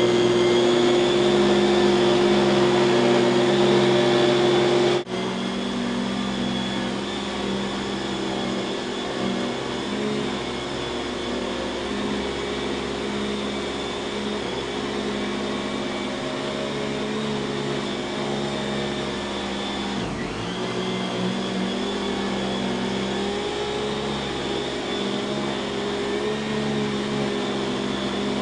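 1995 Kenmore 116.2561290 canister vacuum cleaner's dual-stage Lamb motor running with a steady whine. About five seconds in, the sound drops abruptly to a quieter, slightly different tone. There is a brief dip near twenty seconds in.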